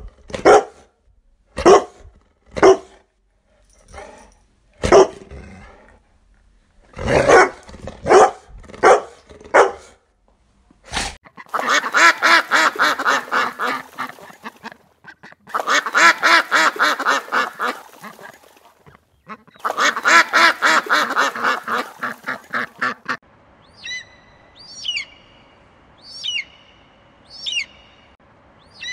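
A run of animal calls in three bouts. First come sharp single calls about once a second, then three long trains of rapid pulsed calls, and finally short descending chirps about once a second near the end.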